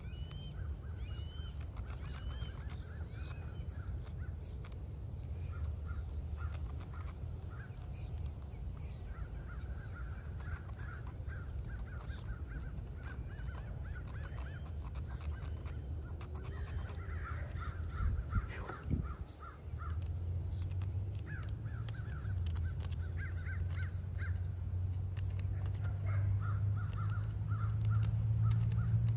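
Crows cawing in repeated series, with small birds chirping higher up, over a steady low rumble that grows louder in the second half.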